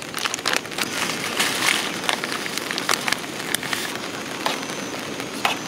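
Rain pattering, an even hiss dotted with many irregular sharp drop ticks.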